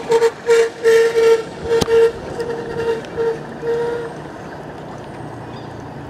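A vehicle horn tooting in a quick series of short beeps of uneven length, about two a second, stopping about four seconds in, over a low steady engine hum.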